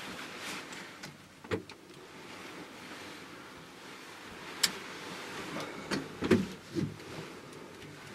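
Quiet handling noise close to the microphone: soft rustling with a few sharp clicks and low knocks. A sharp click comes about halfway through, and a cluster of bumps follows, the loudest of them a little after that.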